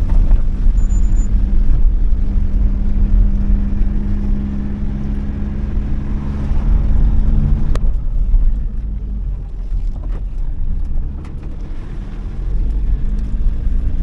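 Vehicle engine and road noise heard from inside the cabin while driving: a steady low drone with the engine's hum. About eight seconds in there is a sharp click, after which it runs a little quieter.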